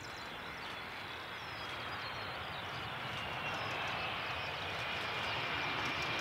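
Boeing 757's Rolls-Royce RB211 jet engines during the landing rollout: a steady rush that grows louder, with a high whine drifting slightly down in pitch.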